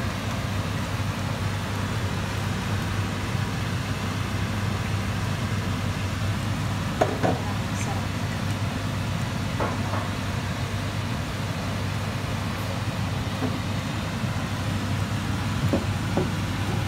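A steady low hum and rumble, with a few faint, brief sounds about seven, ten and sixteen seconds in.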